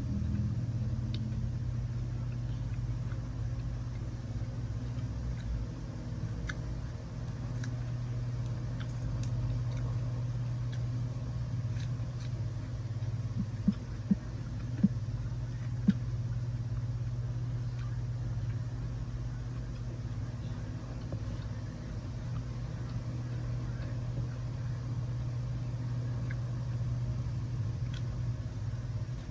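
Steady low hum, like a running engine or motor, with scattered light clicks and a few sharper taps.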